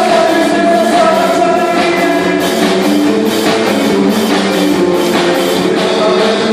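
A band playing a rock-style song with drum kit and guitar over a steady beat, with some singing.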